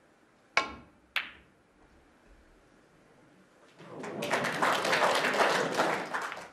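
A snooker shot: two sharp clicks about half a second apart, the cue tip striking the cue ball and then the cue ball hitting the object ball. A few seconds later audience applause breaks out and is the loudest part.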